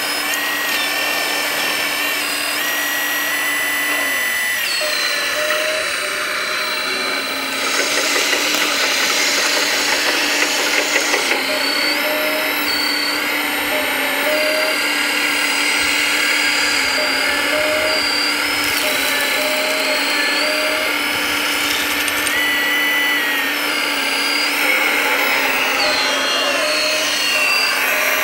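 Electric motors of radio-controlled scale construction models whining as they work, their pitch stepping up and down as the controls change. A louder stretch of rattling from about 8 to 11 seconds in.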